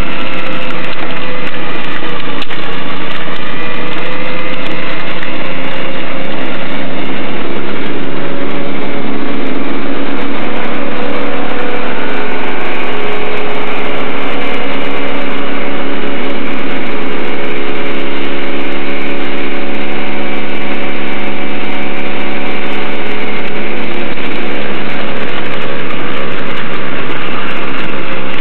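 Truck-mounted Chinook snowblower running and throwing snow: the steady drone of the Ford 2.3L four-cylinder engine that drives the blower hydraulically, mixed with the pickup's own engine. The pitch wavers a little in the first few seconds, then holds steady; the blower engine runs without a governor.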